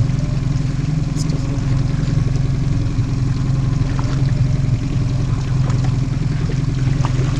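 Boat engine running steadily at low trolling speed, an even low drone.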